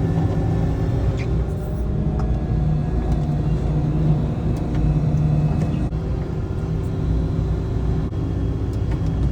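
A vehicle engine running steadily at a constant speed, heard from inside the cab as an even low drone.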